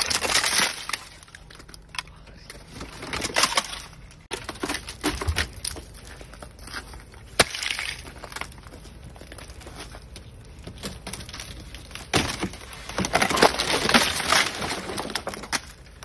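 Thick glaze ice on a car cracking, crunching and breaking off as the frozen door and trunk lid are forced open. There is a sharp single crack about halfway through, and a longer, louder spell of breaking ice near the end.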